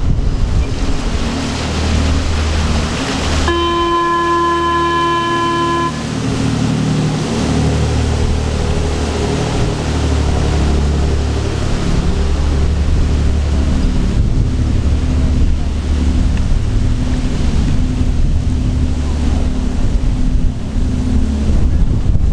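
Shannon-class RNLI all-weather lifeboat pulling away under its twin diesel engines and waterjets: a steady low engine hum under the rush of its churning wash, with wind buffeting the microphone. About three and a half seconds in, a horn sounds one steady blast lasting a little over two seconds.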